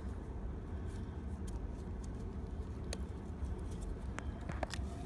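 Handling noise of a rubber stopper being worked onto fountain pump and light cords: a few faint small clicks and rubs over a steady low background rumble.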